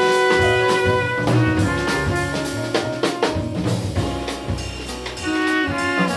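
Live jazz quintet playing: trumpet and alto saxophone holding melody notes over piano, upright double bass and a drum kit with cymbal hits.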